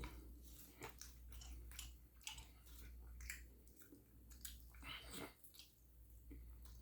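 Faint, close-up chewing of food, with irregular wet mouth clicks and smacks and a longer smacking sound about five seconds in.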